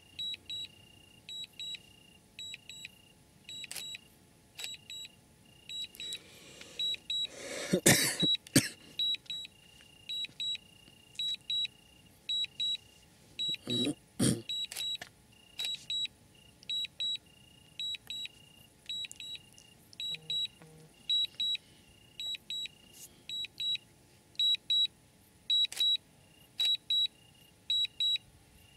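Electronic beeping: short high beeps at two pitches, repeating about once a second at an uneven pace, each with a faint click. Two brief louder noise bursts come about eight and fourteen seconds in.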